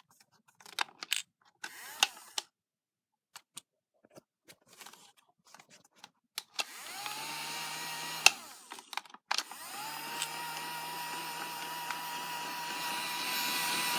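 Battery-powered light-up bubble blower's small fan motor switching on about six and a half seconds in, its whine rising quickly to a steady pitch. It cuts out briefly around nine seconds and starts again, running steadily. Before it, scattered clicks from handling the toy.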